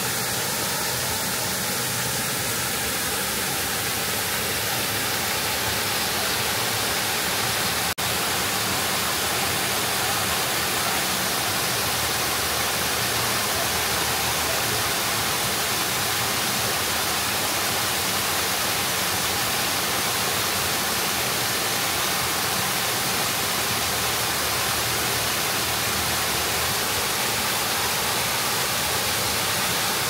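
A waterfall's rushing water, a steady, unbroken hiss with a momentary break about eight seconds in.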